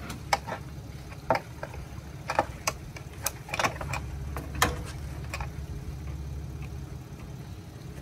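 Metal clicks and clanks from a hand trailer winch and its bow strap as a Sea-Doo jet ski is winched up onto its trailer, irregular for about five seconds and then sparser. A steady low engine hum runs underneath.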